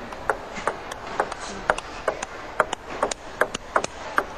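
Table tennis rally: the celluloid ball clicking sharply off the bats and the table in a quick, fairly regular rhythm of about three hits a second, over steady background noise.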